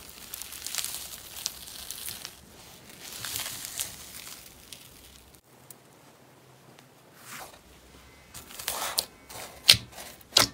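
Hands pressing into slime with a crunchy, grainy top layer that cracks and tears: a crackling hiss, then a run of sharp crisp pops and crackles in the last couple of seconds.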